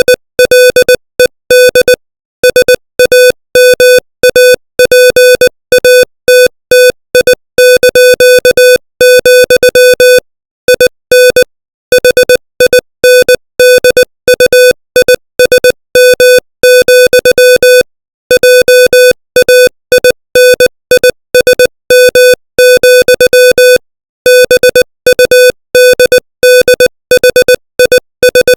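Machine-generated Morse code sent at 20 words per minute: one buzzy mid-pitched tone keyed on and off in short dots and longer dashes, with brief pauses between letters and longer gaps between words.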